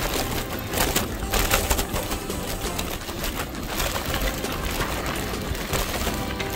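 Bicycle tyres rolling over a dirt and gravel road, with irregular crackling from stones and the bike rattling, over a steady low rumble.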